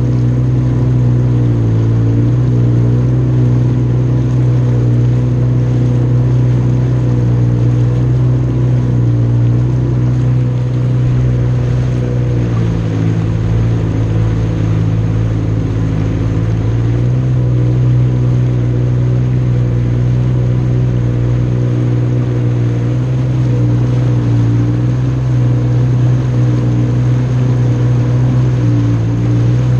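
Jet ski engine running steadily, with a brief rise in engine speed about halfway through before it settles back.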